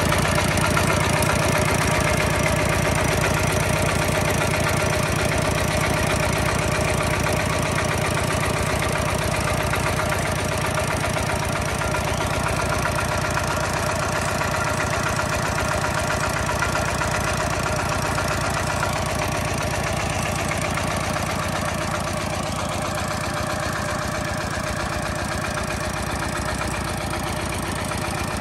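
Hinota single-cylinder horizontal diesel engine running steadily with a rapid, even chugging beat while it drives a coupled water pump.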